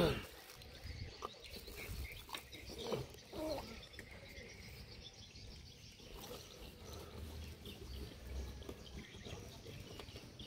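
Faint riverside ambience: scattered bird chirps over a low rumble. A short, loud sliding call comes right at the start.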